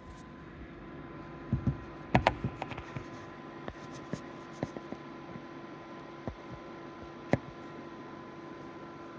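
Steady electrical hum with a scattered series of sharp clicks and knocks, a quick cluster of louder ones about two seconds in and a single loud click near the end; no engine is running yet.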